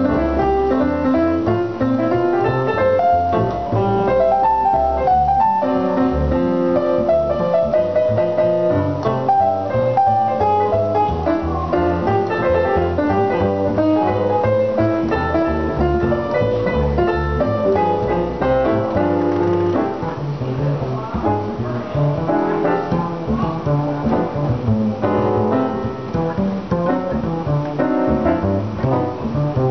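Jazz duo of digital piano and upright double bass playing a jazz standard: piano melody and chords over plucked bass notes.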